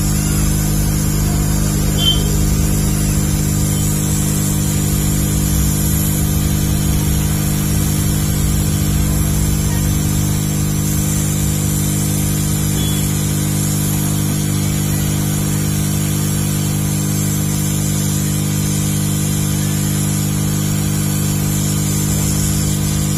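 Hot air rework gun blowing steadily with a constant hum, heating the CPU chip of a set-top box circuit board to reflow its solder joints.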